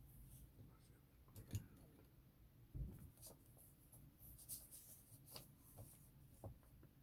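Near silence in a small room, broken by a few faint scattered clicks and rustles.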